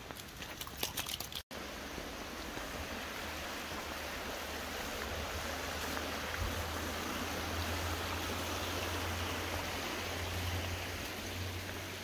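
Footsteps on a wet gravel path for about the first second and a half, then a sudden break, followed by the steady rush of a fast-flowing woodland river over rocks.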